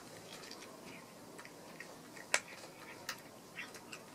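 Cat eating dry kibble from a ceramic bowl: faint, irregular crunches and clicks, the sharpest a little past halfway.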